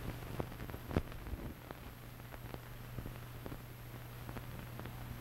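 Old film soundtrack noise: irregular clicks and pops over a low steady hum and hiss, the sharpest click about a second in.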